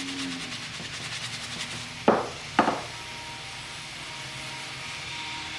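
A stiff brush scrubbing leather in rapid short strokes, stopping about two seconds in. Two sharp knocks about half a second apart follow, then a steady hiss.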